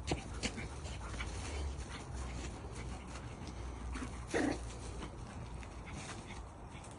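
A dog at play gives one short call that falls in pitch, about four and a half seconds in. Faint scattered clicks and a low steady rumble lie underneath.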